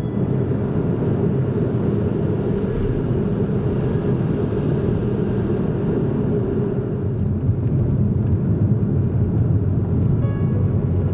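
Steady low rumble of a car driving on city streets: engine and tyre road noise heard from inside the cabin by an in-car camera.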